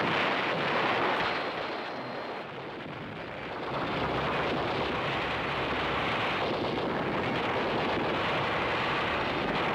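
A steady rushing, rumbling noise with no distinct shots or impacts, swelling about a second in, easing off, then rising again about four seconds in and holding.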